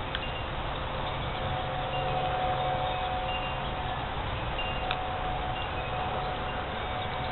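Sustained ringing tones over a steady background hiss, with a few short high tones and a couple of faint clicks.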